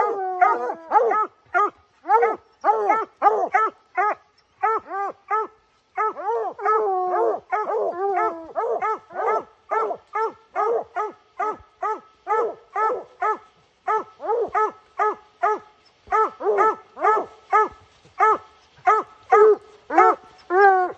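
A pack of bear hounds bawling at the foot of a tree, several dogs' barks overlapping in a rapid, unbroken chop of several barks a second. This is hounds barking treed, the sign that the bear has gone up the tree.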